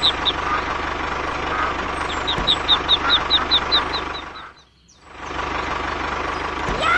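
Tractor engine sound running steadily, with ducklings peeping in quick, even chirps about four a second over it for the first few seconds. The sound drops almost to silence for about half a second just past the middle, then the engine comes back.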